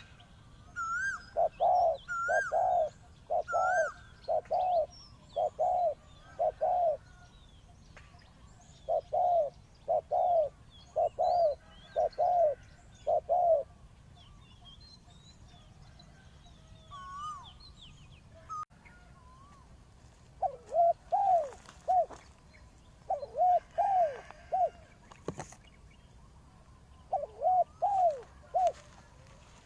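Spotted doves cooing: deep coos in evenly spaced runs of four to six notes, repeated in several phrases with short pauses between. Small birds chirp and whistle faintly at a higher pitch behind them.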